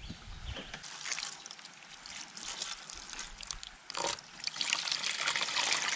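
Hand squeezing and kneading freshly grated coconut with water in a steel bowl to make coconut milk: irregular wet squelching and rustling, louder in the second half.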